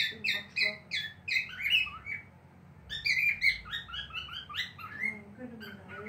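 Cockatiel chirping in quick runs of short, down-sliding whistled notes, about three a second, with a brief pause about two seconds in.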